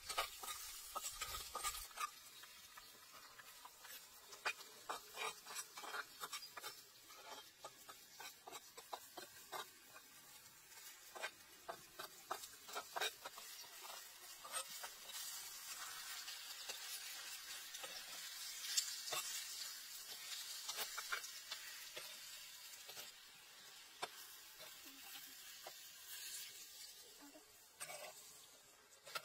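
A spatula stirring and scraping a pan of chili paste and spices frying in oil, with a steady sizzle. There are many short clicks and scrapes in the first half, and the sizzle is more even through the middle.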